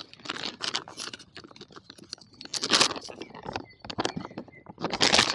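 Plastic groundbait packets crinkling and rustling as they are handled and opened. The crackling comes in irregular bursts, louder about halfway through and again near the end.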